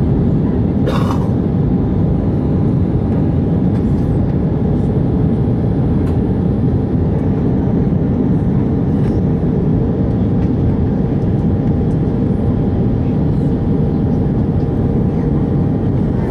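Steady loud roar inside an Airbus A319 cabin in flight, from the jet engines and the air rushing past the fuselage, with a faint steady hum over it. A short hiss breaks in about a second in.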